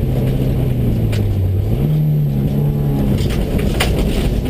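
Subaru rally car's flat-four engine heard inside the cabin while the car slows on a gravel road. Its pitch sinks, then jumps back up about two seconds in, over steady tyre and gravel noise with a couple of sharp clicks.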